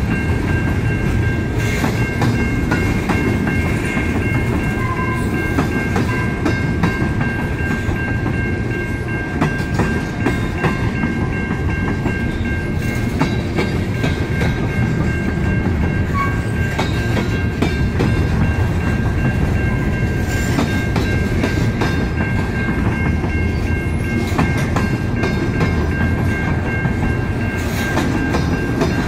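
Covered grain hopper cars of a long freight train rolling past: a steady rumble of steel wheels on the rails, with scattered clicks as wheels cross rail joints and a steady high-pitched whine running over it.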